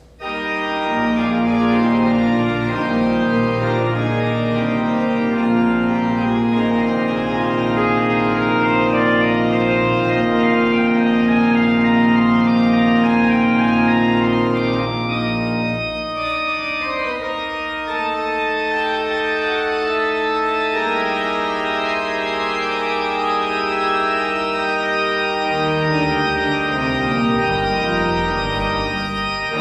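Church organ playing held chords. The bass drops out about halfway through, and a bass line steps downward near the end.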